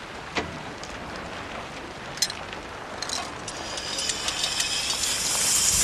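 A steady rushing hiss with a few sharp clicks, swelling louder over the second half.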